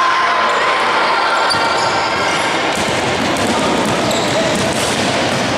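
Basketball bouncing on a wooden gym court as it is dribbled during a game, amid players' and spectators' voices.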